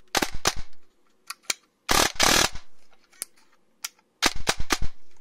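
Airsoft electric gun's gearbox with a 3D-printed piston and dual-sector gear cycling in short bursts, the piston slamming forward with sharp mechanical clacks. There is a string of about four clacks at the start, a few single clacks, a short rapid burst about two seconds in, and another string of about five near the end.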